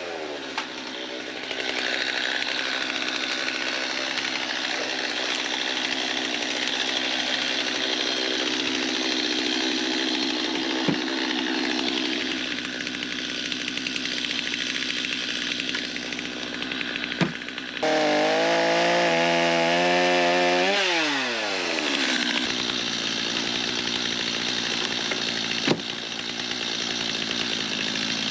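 Stihl chainsaw bucking logs, running at full throttle through the cut. A little past halfway the engine revs freely, then its speed drops, and it goes back to cutting.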